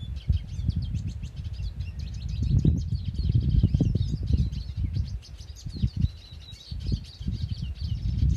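Several small birds chirping and twittering in quick, overlapping calls, over a loud, gusting low rumble of wind on the microphone.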